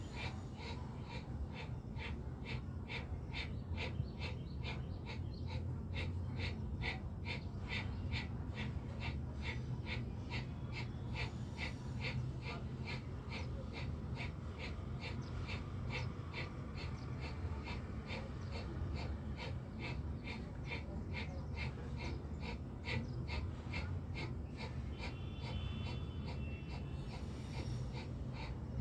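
Bhastrika pranayama (bellows breath): rapid, forceful breaths pumped in and out in a quick, even rhythm that keeps going steadily.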